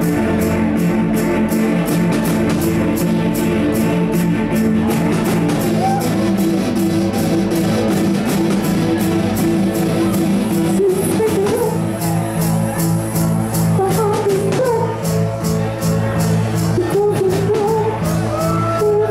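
Live rock band playing loudly, with electric guitars over a steady drumbeat.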